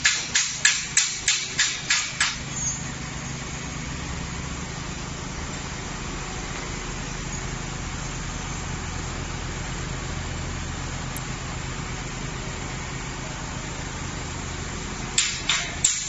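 Rapid sharp knocks, about three a second, give way after a couple of seconds to the steady low hum of an overhead electric hoist lifting a cage of split wood. The regular knocking starts again about a second before the end.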